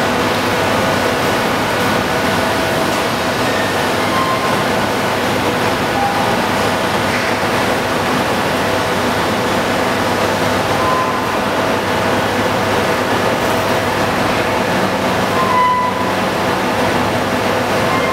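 Fire-rated fabric shutter running steadily as its curtain lowers, a continuous even rumble.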